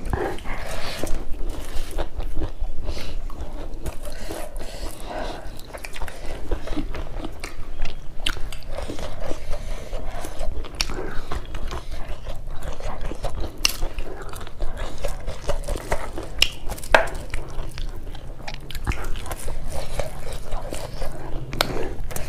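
Close-miked mouth sounds of people chewing and biting curried beef innards and rice eaten by hand: irregular wet smacks and sharp clicks.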